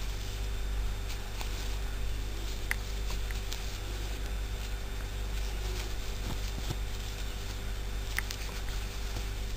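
Steady low electrical hum with faint, scattered clicks and soft rustling of a metal crochet hook working yarn in short stitches; two sharper clicks come about a third of the way in and near the end.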